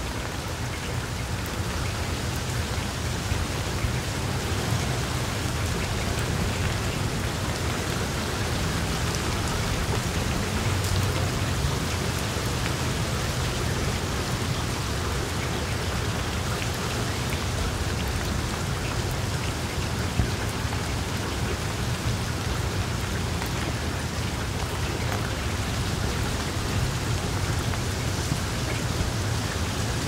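Steady rain falling, with scattered drops pattering.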